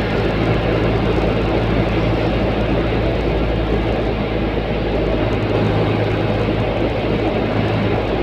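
Steady road noise inside a vehicle cruising on an expressway: tyre and wind noise over a constant low engine hum.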